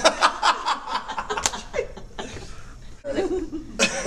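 A man laughing hard in quick bursts, with more laughter starting again about three seconds in.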